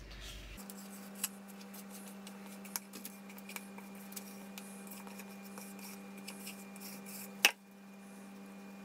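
Spatula scraping and tapping cake batter out of a mixing bowl into a lined baking tin: light scrapes and clicks, with one sharper knock about seven and a half seconds in. A steady low hum starts just after the beginning and runs on.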